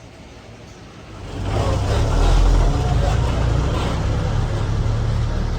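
Bus engine and road noise, low and rumbling, surging loud about a second in and staying loud.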